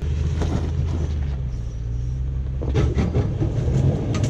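Toyota Sequoia's V8 engine pulling at low speed as the SUV crawls over boulders, with the engine note building about two and a half seconds in. Scattered crunches and scrapes come from the tires and the underside working against the rock while the differential is hung up on it.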